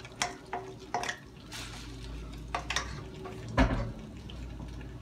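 Clinks and scrapes of a utensil against a stainless steel colander and pan as cooked pasta is tipped into the pan, a few light knocks with a heavier knock about three and a half seconds in. A low steady hum runs underneath from about a second and a half in.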